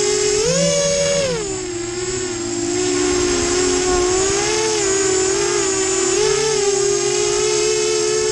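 Flite Test FT250 mini FPV quadcopter's electric motors and propellers whining steadily. The pitch jumps up sharply about half a second in as the throttle is pushed, falls back a second later, then wavers up and down with small throttle changes as it flies.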